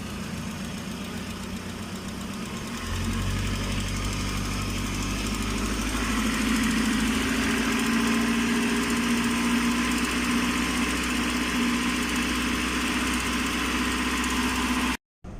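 GAZelle van engine idling steadily after a coolant hose was replaced. It gets louder about three seconds in, and the sound cuts out suddenly near the end.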